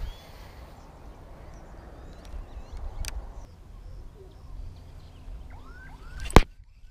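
Birds chirping over a low steady rumble, with two sharp clicks: one about three seconds in and a louder one near the end.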